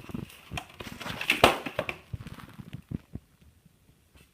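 Hands handling toy playset pieces: a run of small clicks and knocks with a louder rustle about a second and a half in, then quiet.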